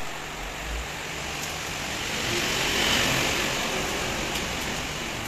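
Heavy monsoon rain falling steadily, with a water tanker truck passing on the wet road: its engine rumble and tyre hiss swell to a peak about halfway through, then ease off.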